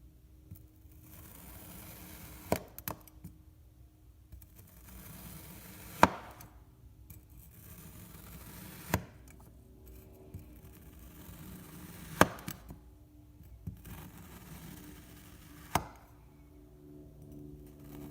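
A blade cutting kinetic sand: a soft crumbly hiss as it slices through, with a sharp tap as each cut goes through, six times and about every three seconds.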